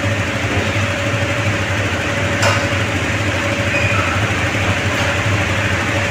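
Electric tabletop bread slicer running with a steady hum while a loaf is pushed through its blade frame to be sliced. There is one short click about two and a half seconds in.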